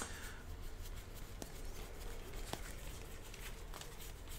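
Faint handling of trading cards as a deck is searched, with a few light clicks over a low steady room hum.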